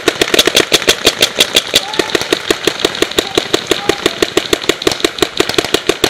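Paintball markers firing: rapid pops, about eight to ten a second, with no break.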